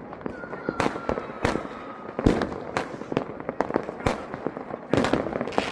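New Year fireworks and firecrackers going off all around in a dense, irregular string of bangs and crackles, with one especially loud bang about two seconds in. A faint whistle drops slightly in pitch over the first two seconds.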